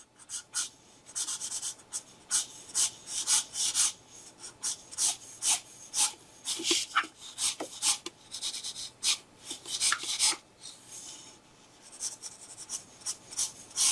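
Felt-tip marker strokes rubbing and scratching across newsprint paper: a quick, irregular series of short strokes, with a brief pause about three quarters of the way through.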